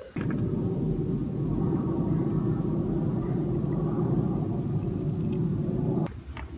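New engine oil poured steadily from a plastic jug through a funnel into the engine's oil filler neck while the engine is being refilled during an oil change. It is a loud, even rush that starts right away and stops abruptly about six seconds in.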